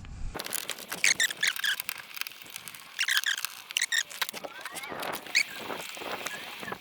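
Fast-forwarded audio of a time-lapse: a man's voice and handling noises sped up into quick high-pitched squeaky chirps, mixed with rapid clicks.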